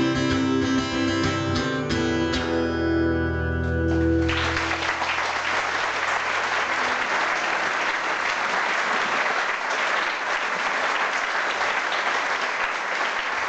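The song's last chord rings out on guitar and fades over the first four seconds; then an audience breaks into applause that keeps on steadily.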